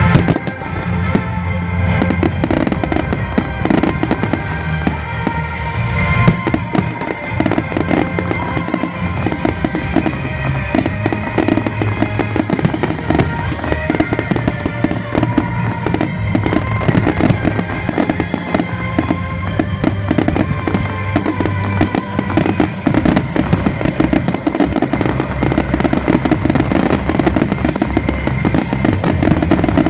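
A fireworks display: shells bursting and crackling in quick succession, the bangs growing denser in the second half, over music played along with the show.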